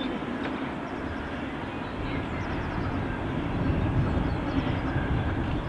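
Small steam tank locomotive working hard as it hauls a passenger train towards the listener, its running noise growing louder as it approaches.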